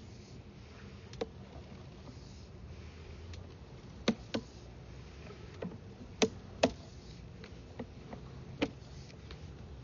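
Scattered sharp clicks and taps, about ten of them at uneven intervals, the loudest a pair around the middle, over a low steady hum.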